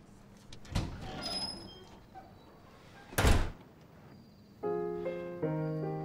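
Two dull thumps, the second and louder about three seconds in, followed near the end by soft piano chords struck one after another.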